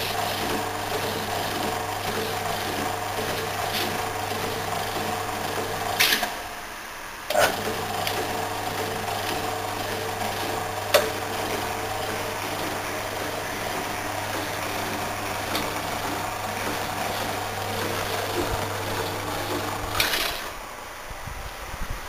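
Home-made power hacksaw running, driven by a small electric motor through a worm-drive gearbox from a British Thompson-Houston washing machine. It gives a steady mechanical hum. It cuts out with a click about six seconds in, starts again a second later, and stops with another click near the end.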